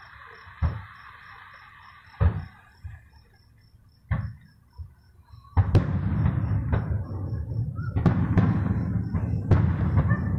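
Aerial fireworks exploding. Several separate booms come in the first few seconds, then about five and a half seconds in a dense barrage of bursts begins, with a continuous rumble and sharp cracks.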